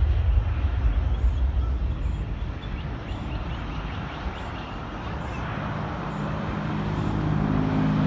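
Jet engine noise from a landing Boeing 737-700's CFM56-7B turbofans, a broad roar that swells again about six seconds in, over a low wind rumble on the microphone at the start. A low steady hum joins near the end.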